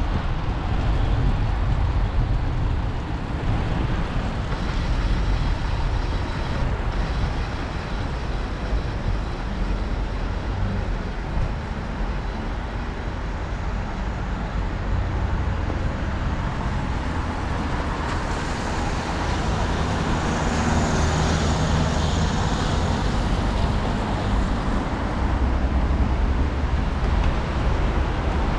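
Steady rushing noise of a bicycle ride on wet streets in the rain: wind buffeting the camera microphone and tyres on wet pavement. A brighter hiss swells for several seconds past the middle.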